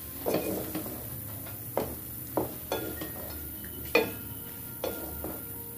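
Wooden spatula stirring cooked pasta in a metal pot, with beaten egg being mixed through it. The spatula knocks against the pot about six times at uneven intervals, the loudest about four seconds in, with soft scraping and squelching of the pasta between the knocks.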